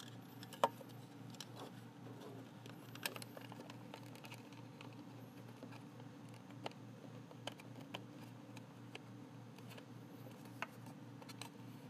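Faint, scattered plastic clicks and taps as a wall-mount bracket is handled and fitted onto the back of a cordless phone base unit, over a low steady hum.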